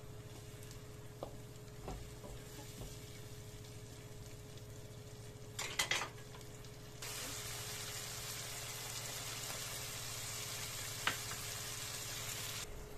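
Onion and masala frying in a kadai, with a wooden spatula stirring and knocking against the pan a few times, the loudest knocks about six seconds in. At about seven seconds a louder, steady frying sizzle starts abruptly and stops just before the end, over a steady low hum.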